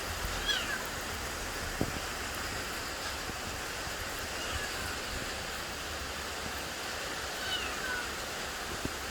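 An animal's short high calls, each falling in pitch, repeated a few seconds apart over a steady hiss.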